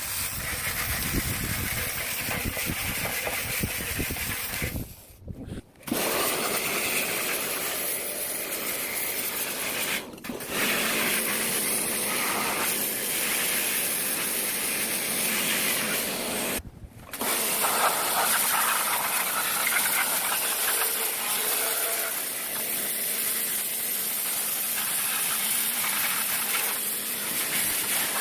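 Pressure-washer water jet spraying steadily with a loud hiss, cut off briefly three times as the spray stops and starts again. It is cleaning the parts of a disassembled top-load washing machine.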